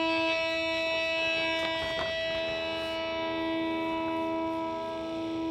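A guitar's open high E string, plucked just before, ringing out as one sustained note that slowly fades.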